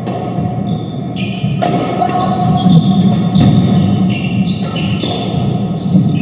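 Doubles squash rally: sneakers squeak briefly and repeatedly on the hardwood court floor, with a few sharp knocks of the ball off racquets and walls, over a steady low hum in the court.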